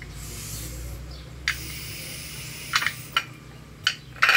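A few sharp metal clicks and clinks as a stainless-steel pressure-cooker lid and its handle are handled, with a soft hiss between them.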